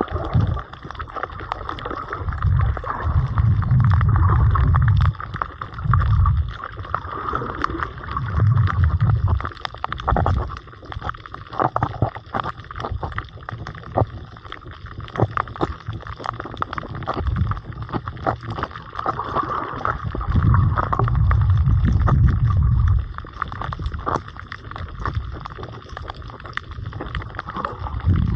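Underwater sound on a shallow coral reef: muffled water noise with many scattered clicks and crackles, and several low surges lasting one to three seconds each, the longest about twenty seconds in.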